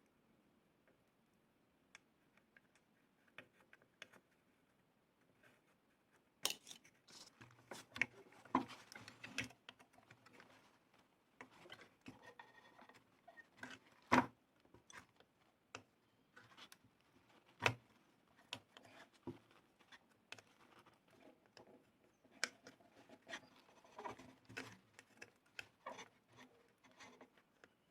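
Faint, irregular clicks, taps and scrapes of hand tools working on a TV power supply circuit board while a faulty capacitor is desoldered, starting about six seconds in after a quiet spell.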